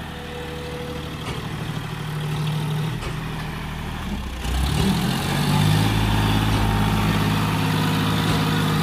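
John Deere tractor's diesel engine labouring under load. About four and a half seconds in it revs up sharply and holds at high revs as it strains to pull a loaded trolley that is bogged down in soft, freshly dumped soil.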